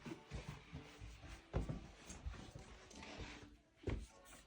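Quiet movement sounds from a small room: soft thumps and rustling, with two louder thumps about a second and a half in and again near the end.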